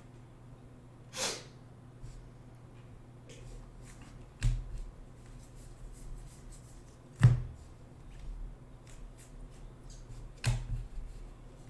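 Trading card packs and cards being handled on a table: a short rustle about a second in, then three knocks a few seconds apart, with small clicks and rustles between, over a faint steady hum.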